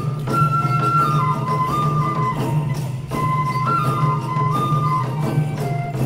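Japanese folk music for the koma odori horse dance: a bamboo flute plays a stepping melody over repeated drum beats and jingling percussion.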